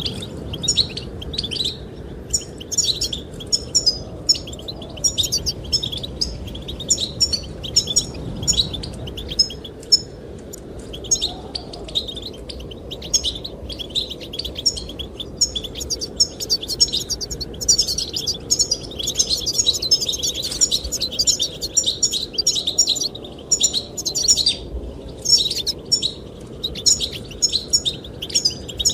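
Goldfinches singing a continuous, fast twittering song of quick high notes, with a steady wind-like rush underneath.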